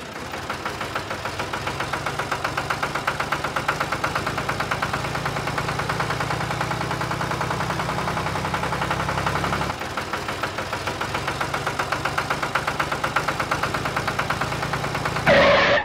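Tractor engine running with a steady chugging beat of about five pulses a second. The low part of the sound drops out briefly about ten seconds in, then the beat carries on.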